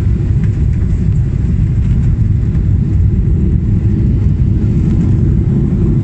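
Jet airliner cabin noise heard from inside at a window seat: a steady low rumble of engines and airflow during the descent toward landing.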